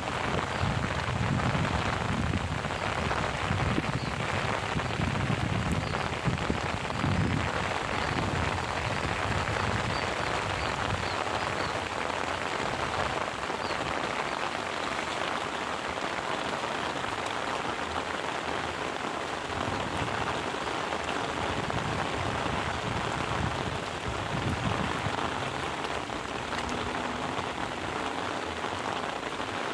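Heavy rain pouring steadily, a dense even hiss, with a low rumble underneath for roughly the first ten seconds.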